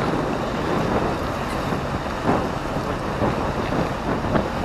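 Wind buffeting the microphone, a steady low rumble, with the wash of sea waves beneath it.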